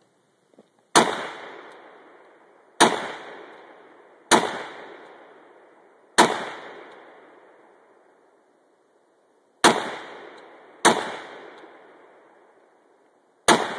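Seven rifle shots fired at uneven intervals, each followed by a long fading echo.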